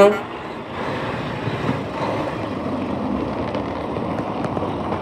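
Peterbilt roll-off garbage truck's diesel engine running as the truck drives past hauling a loaded roll-off container, a steady rumble. The last of a horn toot cuts off right at the start.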